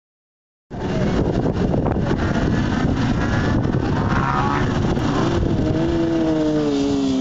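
Racing motorcycles on a circuit: after a moment's silence, engine noise from bikes on track over a steady rushing noise. From about five seconds in, one bike's engine note grows loud and falls steadily in pitch as it comes up the straight towards the listener.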